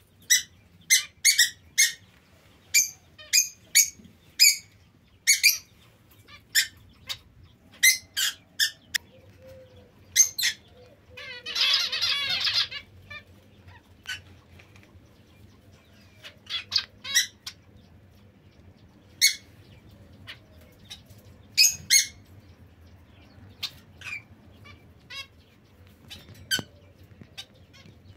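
Small caged finches, zebra finches and society finches, calling with short, separate calls, in quick runs at first and more sparsely later. About eleven seconds in, a denser, noisier burst lasts about a second and a half.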